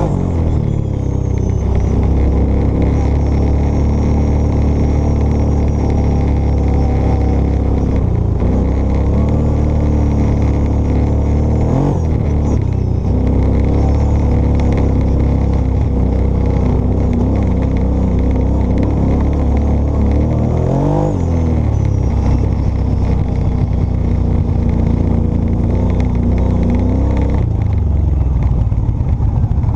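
ATV engine running steadily while the quad is driven along a rough trail, with the pitch changing a few times as the throttle is worked. There are short revs about twelve seconds in and again about twenty-one seconds in.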